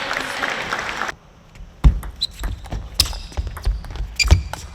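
Arena crowd noise that cuts off about a second in, then a table tennis rally: the celluloid-type ball clicking sharply off the rackets and table in a quick, even run of hits.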